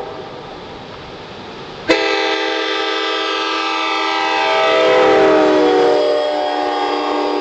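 Nathan Airchime K5LA five-chime train horn blowing a long blast, starting sharply about two seconds in after a quieter lull. Its chord drops in pitch midway as it passes close by, a Doppler shift, and it is loudest just then.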